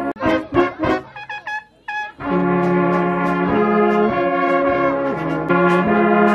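Brass band of trumpets, clarinets and tubas playing a slow tune. For the first two seconds or so the music is choppy and broken, then it settles into long held chords over a bass line that steps from note to note.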